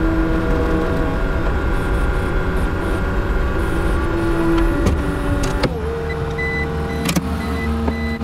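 Skid steer engine running with its hydraulics whining, heard from inside the enclosed cab as the joysticks are worked; the whine shifts in pitch, then about two-thirds through settles to a steadier tone with a click. A short high beep repeats near the end.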